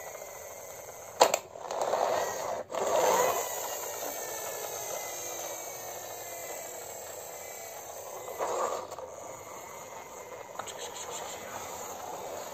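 Plastic toy truck being handled and pushed across a hard surface: a sharp click about a second in, then short scraping rushes of plastic on the surface, with another scrape near the end.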